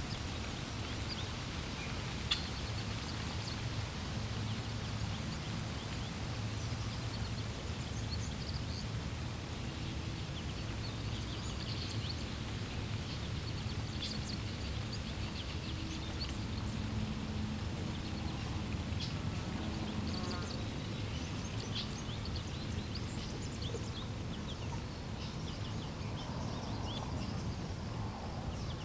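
Steady rush of flowing water, with birds chirping in short scattered calls over it.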